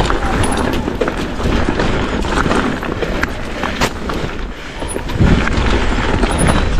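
Mountain bike tyres crunching and skittering over loose shale, with frequent sharp knocks and rattles from the bike hitting stones, over a low rumble of wind on the microphone.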